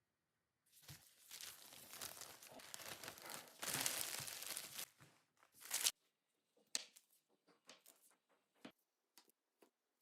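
Crinkling, rustling handling noise for about five seconds, loudest near the middle, which stops suddenly around six seconds in. It is followed by a scattered series of light taps and clicks.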